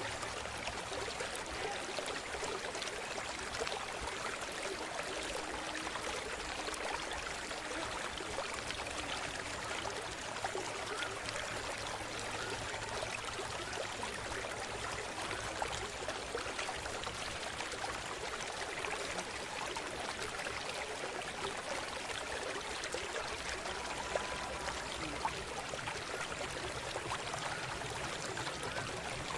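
River water flowing and trickling steadily over stones, a continuous rushing dotted with small gurgles.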